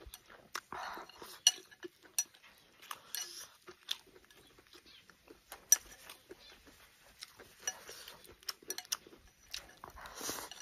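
Chopsticks clicking against a porcelain rice bowl at irregular intervals, mixed with close-up eating noises. The loudest stretch of mouth noise comes near the end, as rice is shovelled into the mouth from the bowl's rim.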